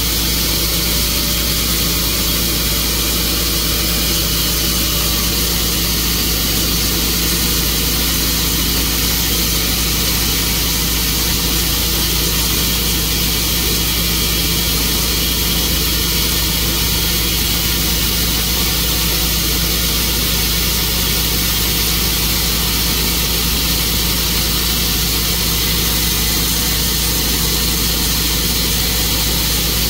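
Tru-Cut sawmill running steadily, its engine holding one even speed with no change for the whole stretch.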